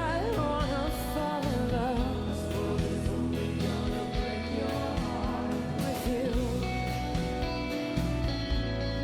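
Background pop song with a singing voice over guitar and a steady beat.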